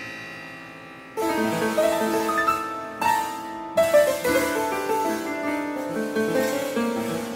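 Grand piano: a held chord dying away, then about a second in a busy passage of many quick notes starts and runs on.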